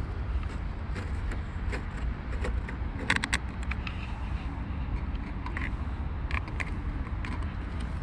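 Scattered clicks and light metallic rattles of small bolts and plastic trim parts being handled while the tailgate trim of a Mercedes A-Class W169 is refitted, with a quick cluster of clicks about three seconds in, over a steady low rumble.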